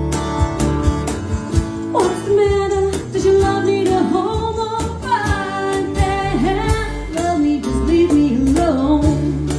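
Band music: guitar strumming with a steady beat under a sliding, wavering lead melody that comes in about two seconds in.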